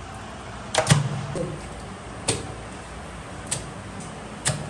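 Five sharp knocks at irregular spacing, the loudest about a second in, over a steady background hum.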